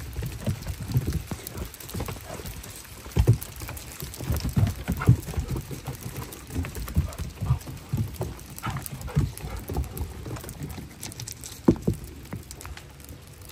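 Small hail pattering on a wooden deck: an irregular scatter of light ticks and soft knocks.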